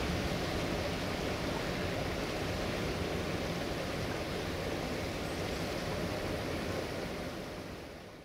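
Steady rush of a fast-flowing river with a low rumble underneath, fading out over the last second.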